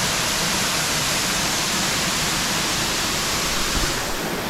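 Waterfall rushing in a steady, even roar of falling water, a little less hissy near the end.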